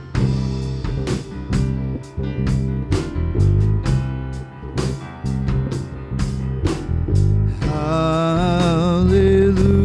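Live praise band playing an instrumental passage between sung lines: drums keep a steady beat of about two hits a second over bass and guitar. A held, wavering note comes in near the end.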